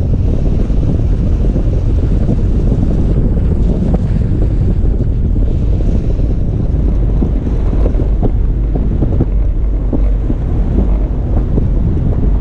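Toyota FJ Cruiser driving on a snowy dirt road: a steady low rumble of road and driveline noise, with frequent small knocks and rattles from the bumpy surface.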